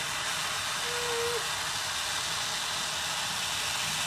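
Gas soldering torch flame hissing steadily at high gas pressure while heating a soldered seam. A short steady tone sounds briefly about a second in.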